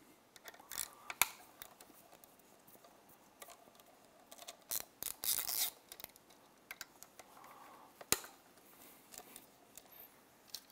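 Hand driver unscrewing the 8 mm bolts that hold the stator on a Yamaha T60 outboard, with scattered metal clicks and short bursts of clicking as the tool works. One sharp click comes about eight seconds in.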